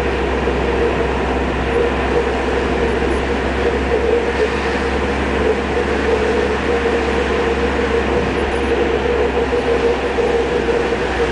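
Steady drone of a car driving: engine and road noise with a constant low rumble and a steady mid-pitched hum.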